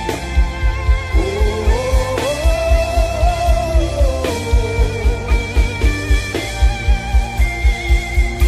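Instrumental atmospheric worship music: held pad tones and a gliding lead melody over a steady pulsing low beat.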